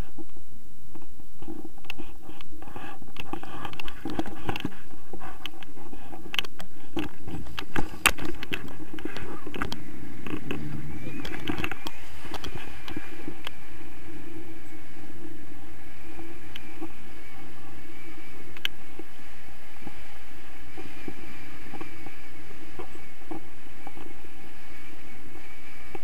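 Wind rushing over the action camera's microphone during a tandem paraglider launch: for the first several seconds irregular knocks and rattles from the harness and lines as they run and lift off, then a steady rush of airflow once in the air.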